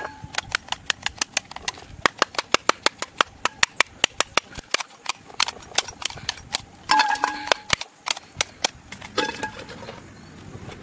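A rapid series of sharp clicking knocks, about four a second, broken by a short pitched call or voice about seven seconds in and again a couple of seconds later.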